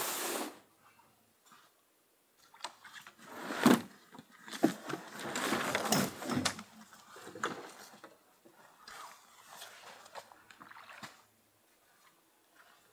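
Camping gear being unloaded from a beached canoe: irregular knocks and thumps against the hull with the rustle of a large backpack and its straps being lifted out, busiest about four to six seconds in.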